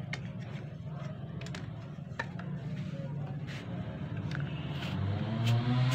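Plastic parts of an HP 80A toner cartridge clicking and knocking as they are handled, a handful of separate clicks, over a steady low hum.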